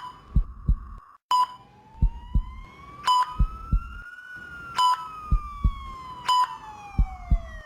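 Sound effect of an intensive-care patient monitor: a short beep about every one and a half seconds, each followed by a soft double thump like a heartbeat. Over it a slow tone rises from about a second in, peaks midway and falls away toward the end, like a siren.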